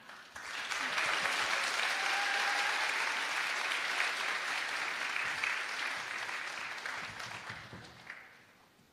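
Audience applauding: many hands clapping at once, starting right away, holding strong for several seconds, then dying away over the last few seconds.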